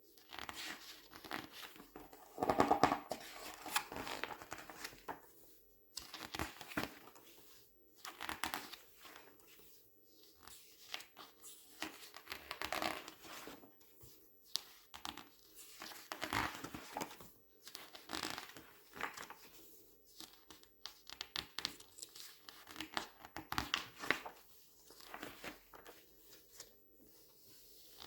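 Glossy paper pages being turned and squeezed by hand, crinkling and rustling in repeated bursts every second or two, the loudest about three seconds in.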